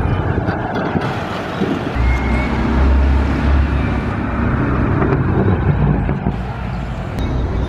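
Old cars driving past on a street, their engines and tyres running. A deep engine rumble builds about two seconds in and fades around six seconds in as a vintage pickup truck passes close by.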